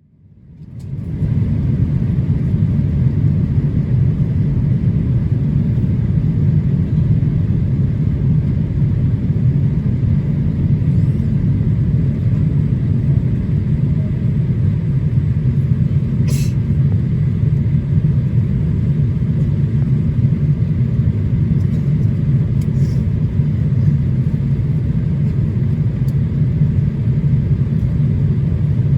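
Steady low cabin rumble of a Boeing 787-8 Dreamliner in flight on approach: engine and airflow noise, fading in over the first second, with a couple of faint clicks partway through.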